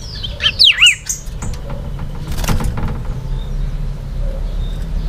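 Pica hueso (golden-billed saltator) giving a quick run of loud, sliding whistled notes about half a second in. A single knock follows near the middle, then a few faint high notes over a steady low rumble.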